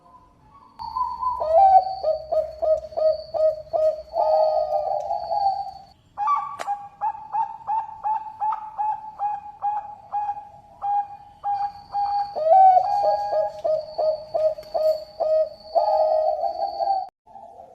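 Zebra dove (perkutut bangkok) singing in long runs of quick, rhythmic coos, about four or five a second, each run ending in a longer rolling note. The song comes in three phrases, the middle one a little higher in pitch.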